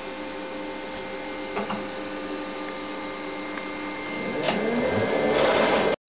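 HP DesignJet 1050c plotter running as it prints a configuration page: a steady mechanical whir with several held tones, growing louder and noisier about four and a half seconds in.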